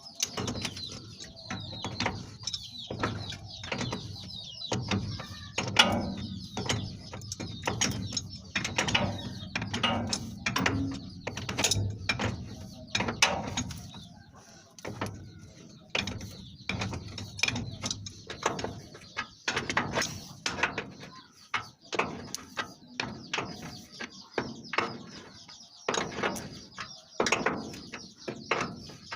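Hand tools working on metal fittings: a wrench tightening bolts, with many irregular ratchet clicks and metal knocks.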